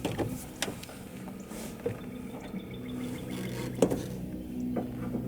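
Scattered sharp clicks and clinks of truck tailgate latch parts being handled and fitted, about five in all, over a steady motor hum.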